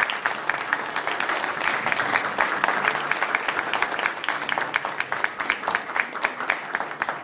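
Audience applauding: many hands clapping together in a dense, steady patter that breaks off suddenly at the end.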